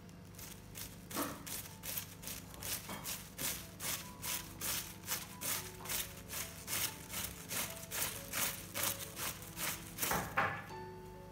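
A knife slicing thin shreds off a half head of green cabbage held in the hand, a cut about every third of a second, stopping about ten seconds in. Background music plays underneath.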